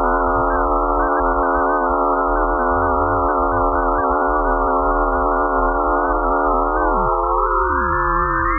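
Eerie electronic drone made of many steady stacked pure tones over a low hum. Near the end some of the tones slide down in pitch while others glide upward.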